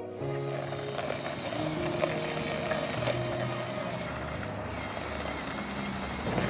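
Background music over a steady gritty scraping noise with a few sharp clicks, from the remote-controlled LEGO Technic trial truck driving.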